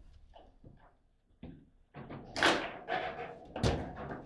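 Table football play: the ball being struck by the rod figures and knocking against the table, a few faint clicks, then a loud sharp strike about halfway through and a heavy thud near the end.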